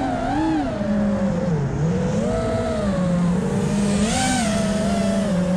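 6S FPV freestyle quadcopter with Emax Eco II 2306 1700kv motors in flight, its motors and propellers whining at a pitch that rises and falls with the throttle, with a short rise in pitch about four seconds in.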